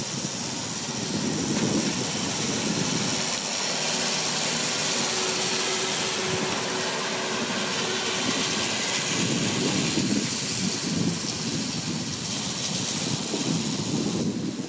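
Tractor running steadily as it tows a gang mower cutting grass: a continuous mechanical noise, with a faint held tone in the middle.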